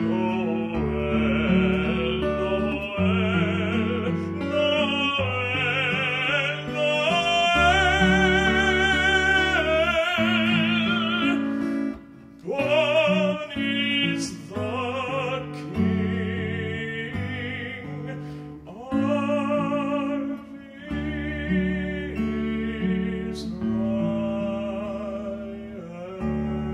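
Live music: a melody sung with wide vibrato over sustained low accompaniment, with a short break in the melody about halfway through.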